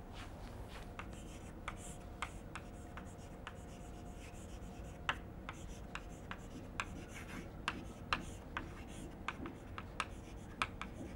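Chalk tapping and scratching on a blackboard as words are written, in many short irregular strokes, over a faint steady hum.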